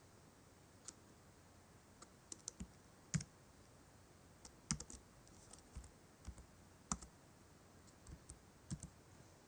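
Faint, slow typing on a computer keyboard: scattered single keystrokes with pauses between them.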